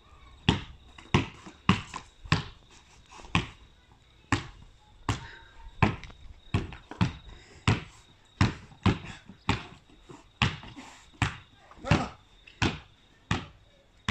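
A basketball being dribbled on brick paving and a wooden deck, about twenty bounces in a steady rhythm of roughly one every two-thirds of a second.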